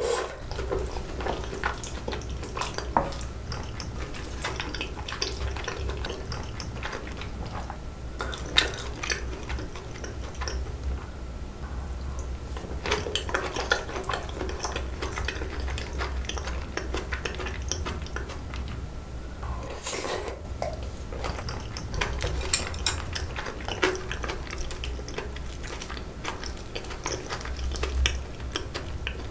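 A metal spoon clinking and scraping against a glass bowl as spicy-sauced noodles are stirred and scooped, with wet chewing between the strokes. A few sharper knocks stand out among the clinks.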